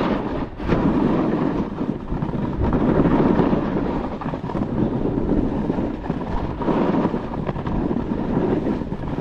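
Wind rushing over the microphone of a head-mounted camera on a fast downhill run, with the hiss and scrape of the rider sliding over packed snow; the noise swells and eases with speed and turns.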